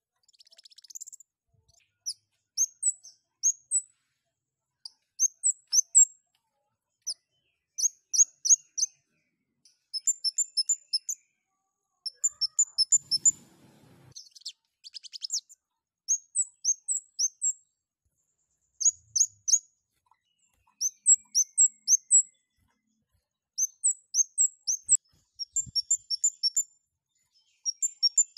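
Kemade (scarlet-headed flowerpecker) calling: sharp, very high chirps in quick runs of two to six, repeated about every second. A buzzy rattle comes about halfway through, and a shorter one about a second in.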